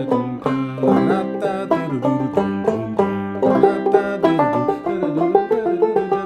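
Five-string banjo played clawhammer style in open C tuning (C-G-C-D-G), picking a quick, continuous run of ringing notes and brushes from the A part of the old-time tune.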